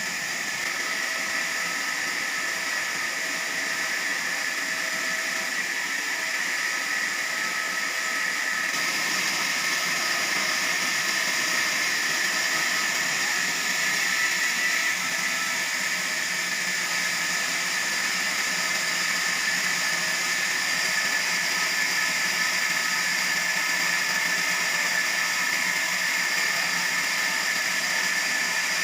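Sawmill saw cutting through a large log: a steady hissing whine with a few held tones, growing slightly louder about nine seconds in.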